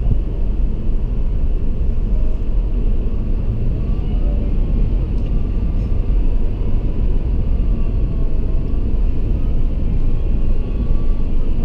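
Steady low rumble of a car's engine and road noise heard from inside the cabin while driving slowly through a road tunnel.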